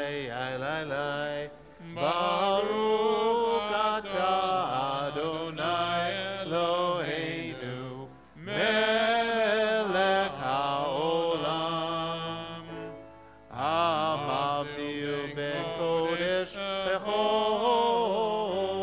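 Congregation singing a slow melody together in long phrases, with short pauses between them, over steady low accompanying notes.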